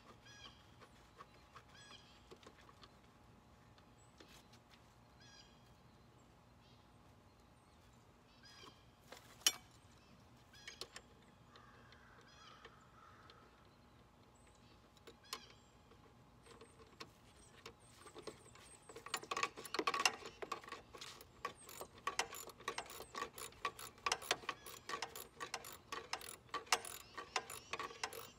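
Ratchet wrench clicking in quick, fast runs during work on a riding lawn mower, starting about two-thirds of the way in. A single sharp click or clank comes about halfway through.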